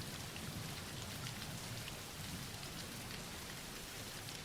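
Steady soft rainfall, an even hiss of rain on a surface with scattered small drop ticks.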